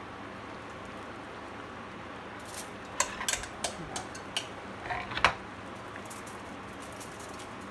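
Kitchen utensil clinking and scraping against a dish as potato filling is spooned into the potato skins. There is a cluster of short knocks and scrapes in the middle, the sharpest about three and five seconds in, over a steady background hiss.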